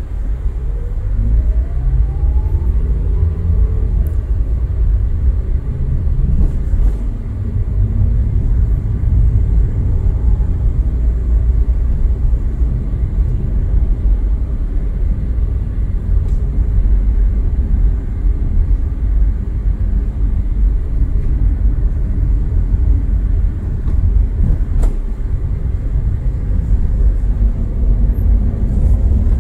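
Steady low rumble of a vehicle driving along, engine and road noise, with a rising whine in the first few seconds.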